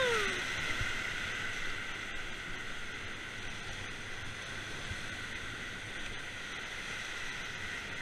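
Whitewater rapids rushing around an inflatable raft: a steady rush of churning water. It opens with the end of a rafter's yell, falling in pitch and fading within about half a second.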